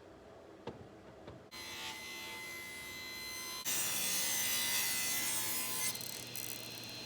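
A few clicks, then a woodworking power tool starts running with a steady whine about a second and a half in. It gets much louder for about two seconds as it cuts wood, then drops back to running.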